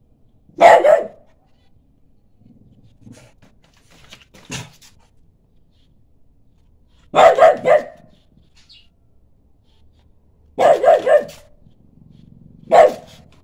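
French bulldog barking in short runs: a single bark near the start, quick strings of two or three barks in the middle and later, and one more bark near the end, with pauses of a few seconds between.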